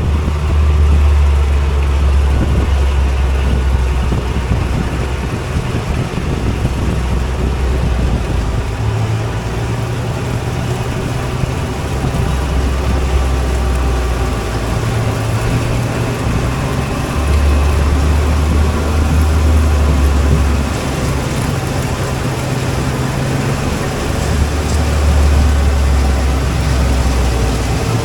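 Combine harvester's diesel engine and machinery running steadily while cutting soybeans, a loud low drone whose pitch shifts up and down every few seconds.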